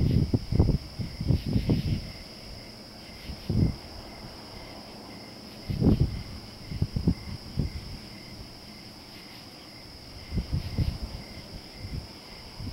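Night chorus of crickets: a steady high-pitched trill, with a lower chirp pulsing in an even rhythm over it. Intermittent low rumbles of breeze on the microphone come and go, strongest at the start and about six seconds in.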